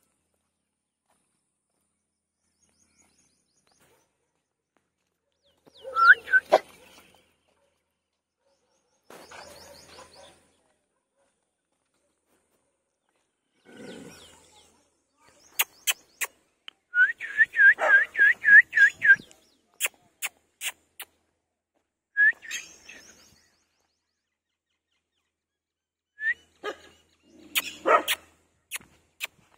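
Playing puppies giving scattered short high-pitched yips, among them a quick run of about seven in a row, mixed with sharp clicks and knocks. The sounds begin about six seconds in and come in short bursts with gaps between them.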